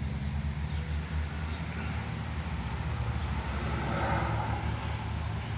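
Steady low hum with outdoor background noise, a little louder around four seconds in.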